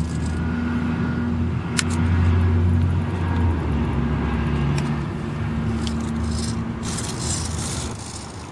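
Brushless motors and propellers of a small quadcopter spinning up and running, a steady low hum with a sharp click about two seconds in.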